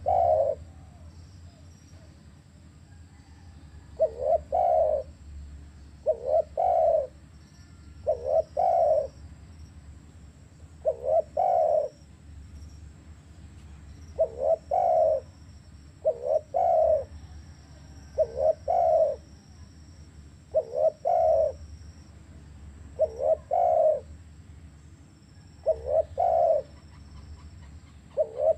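Spotted dove (tekukur) cooing: a two-note coo phrase, a quick note followed by a longer one, repeated about every two seconds.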